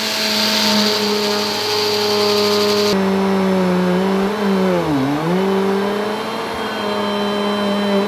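Bissell upright vacuum cleaner running on carpet, a steady motor hum under an airy rush. About three seconds in, the rush drops away abruptly. Around five seconds in, the motor's pitch sags sharply for a moment and then recovers.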